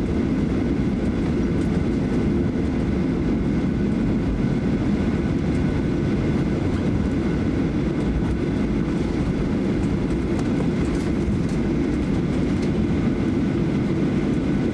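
Steady cabin rumble of a Boeing 737-800 taxiing, its CFM56 engines at idle, with a few faint, steady high tones over the low rumble.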